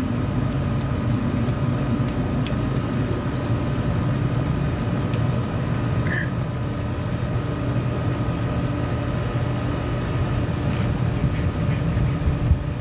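A steady engine drone that holds an even pitch throughout, with a brief faint chirp about six seconds in.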